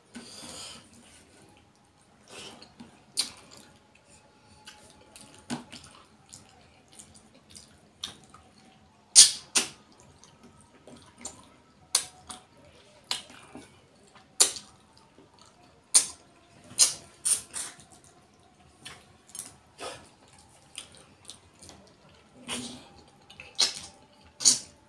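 Wet mouth sounds of eating rohu fish curry by hand: irregular sharp smacks and sucking noises while chewing and sucking a piece of fish off the bone.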